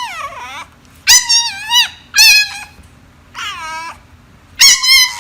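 A cat meowing five times in a row, high-pitched calls each under a second long, some falling in pitch, with short pauses between them.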